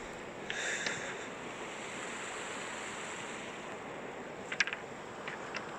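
Steady rushing water, with a few sharp ticks about four and a half seconds in.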